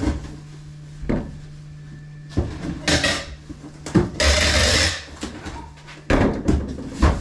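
Cardboard shipping box being folded and handled on a bench: a series of knocks and thumps, with a short, loud rasp of packing tape pulled off a hand tape dispenser about four seconds in.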